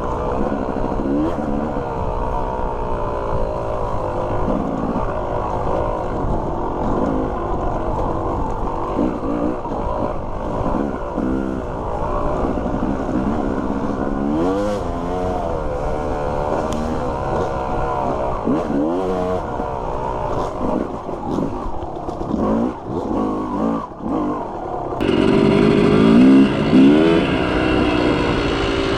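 Dirt bike engine revving up and down as it rides a trail, with scattered knocks and clatter. About 25 seconds in the engine sound turns louder and sharper.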